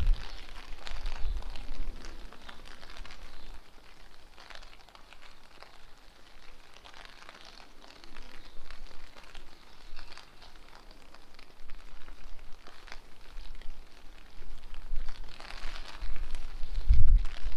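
Steady rain pattering on the street, with gusts of wind rumbling on the microphone at the start and again about a second before the end.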